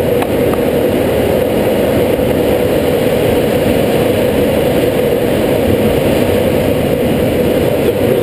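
Steady rush of air streaming over a glider's canopy and cockpit in flight.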